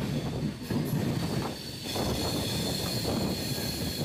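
Passenger train running through the ghat section, heard from the coach doorway: a low rumble of wheels on the rails with a steady high-pitched wheel squeal that grows stronger about halfway through.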